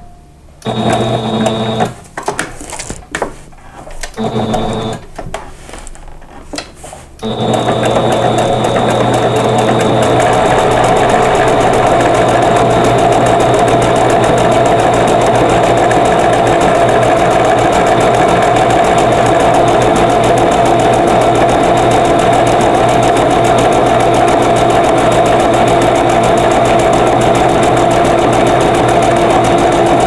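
Electric sewing machine stitching a blanket stitch around the edge of a fabric appliqué. It runs in short stop-start spurts for the first seven seconds or so, then runs steadily without a break.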